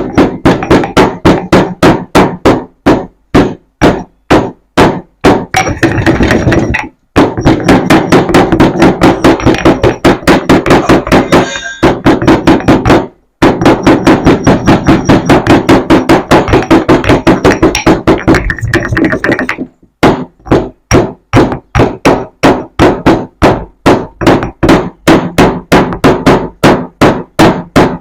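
Cardamom pods being pounded in a mortar: repeated hard strikes, about two a second, coming faster in the middle stretch with a few brief pauses.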